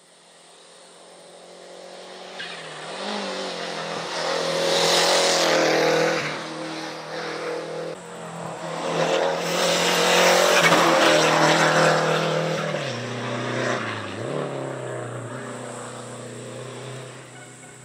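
Renault 5 GT Turbo's turbocharged four-cylinder engine at full race pace, heard from far off and growing loud. Its note rises and drops in pitch through the gear changes, is loudest about ten seconds in, then fades.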